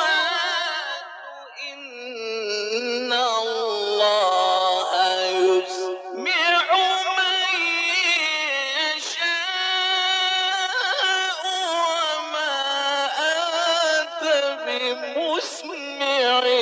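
Male Quran reciter chanting in the melodic mujawwad style: long held, ornamented phrases with a quavering, gliding pitch, briefly dropping in loudness about a second in.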